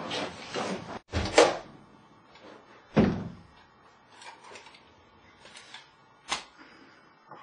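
An interior door being pushed open and handled: a knock about a second in, a heavier thump with a low boom about three seconds in, and a sharp click near the end.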